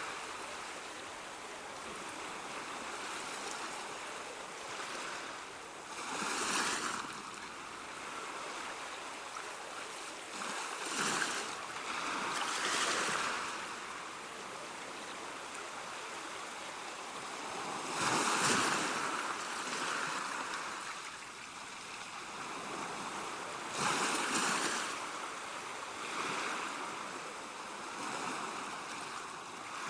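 Ocean surf: waves breaking and washing in over a steady hiss of water, with a louder wave crashing about every five seconds.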